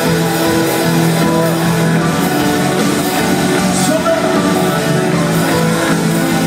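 Live band playing loud psytrance rock: electric guitar, drums and synthesizers, with a singer's voice over them.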